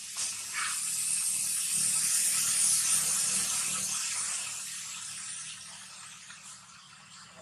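Steady high-pitched buzzing of forest insects, swelling over the first couple of seconds and fading toward the end.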